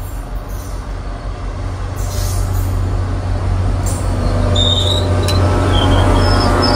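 An NJ Transit GP40PH-2B diesel locomotive runs past with a steady low engine rumble that grows louder as it draws close, pulling its passenger cars into the station. From about four and a half seconds in, short high squeals come from the wheels and brakes as the train slows to stop.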